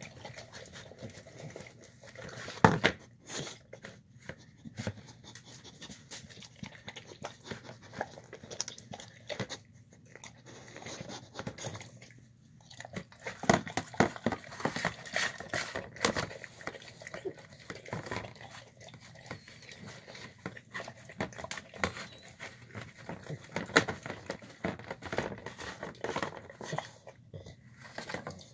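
A dog eating chicken, rice and beans from a plastic tub: irregular wet smacking, chewing and licking, with the tub knocking and scraping now and then. One sharp loud knock comes about three seconds in.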